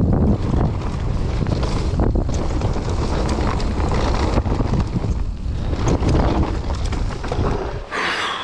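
Wind rushing over the camera microphone with the rattle and rumble of a mountain bike riding fast down a bumpy dirt trail. Near the end the rumble drops away and a short hiss follows as the front wheel loses grip and slides out.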